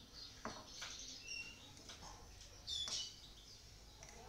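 Goldfinches chirping in short, high calls, the loudest a little under three seconds in, with a spoon clicking and scraping in a ceramic bowl.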